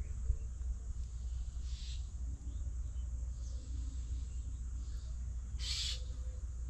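Faint low bird calls over steady outdoor background noise, with two short hissing noises, the second louder, about two and six seconds in.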